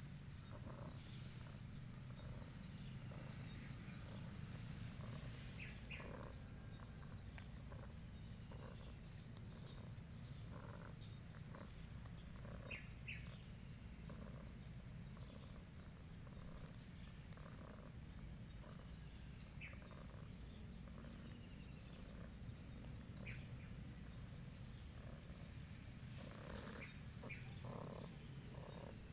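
Tabby-and-white cat purring steadily while being stroked, with faint short high chirps now and then.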